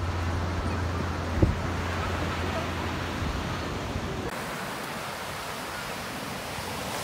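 Steady rush of surf and wind at the shore, with wind rumble on the microphone for the first few seconds. A single knock sounds about a second and a half in.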